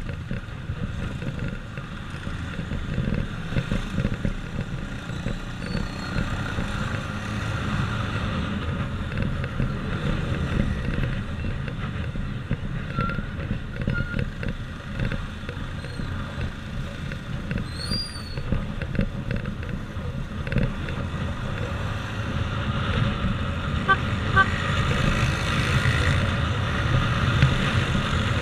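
A motorcycle riding through town traffic, its engine running under a steady rumble of road and wind noise, with other motorbikes and vehicles around it. It gets somewhat louder near the end.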